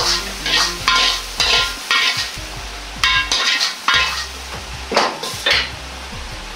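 Steel ladle scraping and knocking around the inside of a wok in about ten quick strokes, each with a short metallic ring, as the last of the stir-fried filling is scooped out. The strokes pause briefly in the middle and stop near the end.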